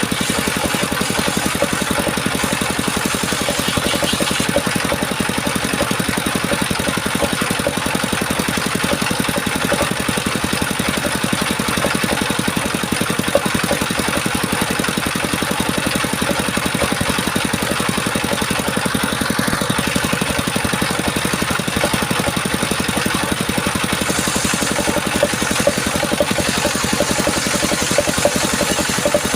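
An engine driving a circular-saw sawmill, running steadily with an even, rapid beat.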